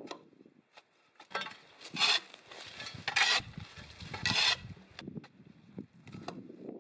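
A long-handled hoe scraping and chopping through dry weeds and soil: three strokes about a second apart, with rustling of dry brush between them.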